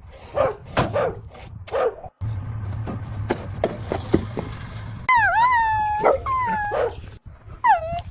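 A dog barking a few times, then, after an abrupt change in the sound, whining and whimpering in high cries that dip and rise again, four or five of them.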